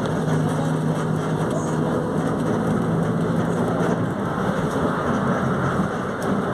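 Diesel engine of a Volkswagen 17.230 OD bus running, a steady engine hum that changes about four seconds in, the hum dropping away as a hiss comes up.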